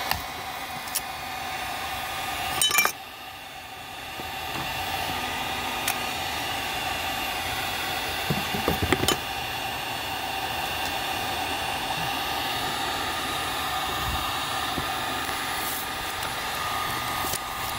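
Electric heat gun blowing steadily, its fan noise dipping briefly about three seconds in. Sharp clicks and cracks of mirror glass being chipped out of the housing with a screwdriver come over it, loudest near three seconds and again around nine seconds.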